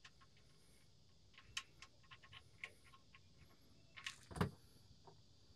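Faint small metallic clicks and ticks as the oil pan drain plug of a 2018 Jeep Wrangler JK is spun out by hand, with one louder knock about four and a half seconds in.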